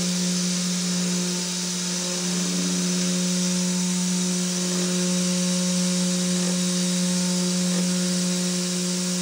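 3018 desktop CNC router's spindle running with an end mill cutting aluminum: a steady whine with a broad hiss over it.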